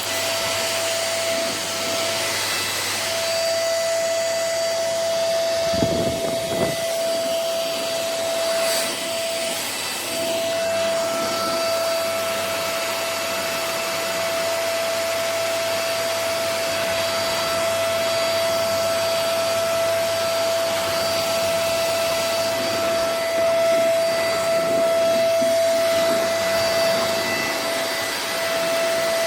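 Tower VL20 corded stick vacuum cleaner running steadily: a constant motor whine over rushing air. A short low knock sounds about six seconds in.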